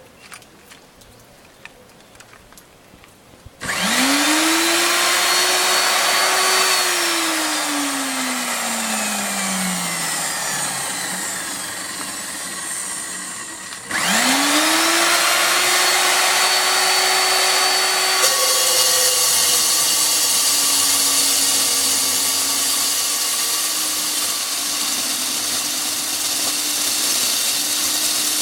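Electric drill boring a hole through a beam. The motor starts about four seconds in, its whine rising quickly to full speed and then sinking slowly. It starts again about fourteen seconds in, and a few seconds later drops to a lower, wavering pitch as the bit bites into the beam.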